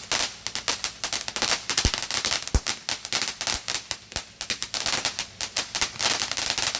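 Consumer firework crackling: a dense, rapid run of sharp pops and cracks, with two heavier thumps about two seconds in.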